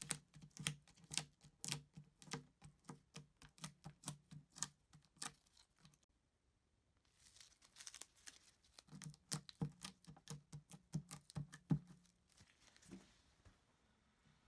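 Blue painter's tape dabbed onto and peeled off a guitar pickup's metal cover and pole pieces to lift steel wool dust, making quick sticky clicks, a few a second. The clicks pause just past the middle with a soft rustle, then start again.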